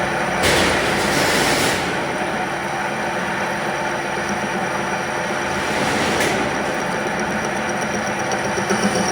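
Steady machine hum, with a louder hissing rush starting about half a second in and lasting over a second, and a shorter one around six seconds in.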